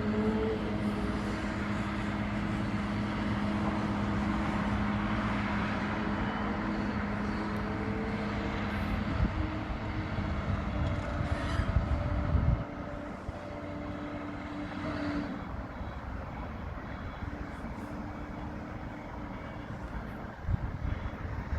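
Heavy machine engine running steadily under load with a few knocks, then dropping abruptly to a quieter, lower running sound about twelve seconds in.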